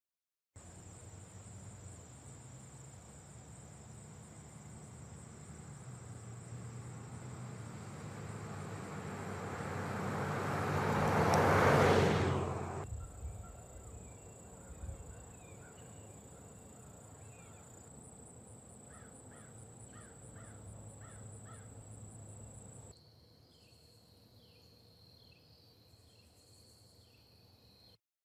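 Outdoor ambience: the noise of a passing vehicle builds to a loud peak about twelve seconds in and cuts off abruptly. After that, birds call in short repeated notes, with a steady insect drone joining in the last few seconds.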